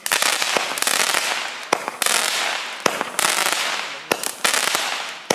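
Joker 'Mandarinka' JF MCP-49 fireworks cake (0.3-inch plastic tubes) firing single shots, about one every second and a quarter. Each sharp launch report is followed by a loud hiss that fades away before the next shot.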